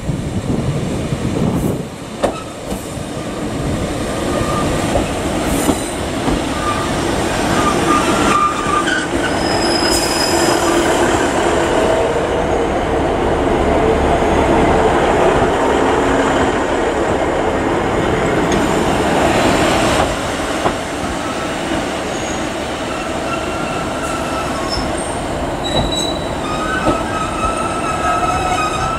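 Diesel trains moving on curved track: a Class 150 diesel multiple unit and a Class 43 HST set, running along steadily, with high-pitched wheel squeals at times.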